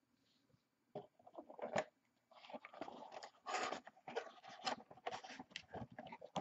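A trading-card pack's foil wrapper crinkling and tearing as it is opened by hand, in irregular crackly bursts that start about a second in.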